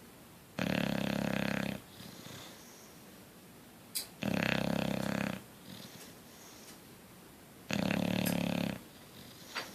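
Bulldog snoring in its sleep: three loud snores, each about a second long, spaced about three and a half seconds apart, with softer breaths between.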